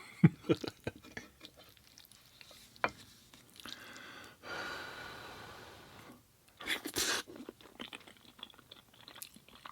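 Close-miked chewing of vegan mac and cheese and chicken nuggets: scattered wet mouth clicks and smacks, with a louder cluster of crunchy bites about seven seconds in.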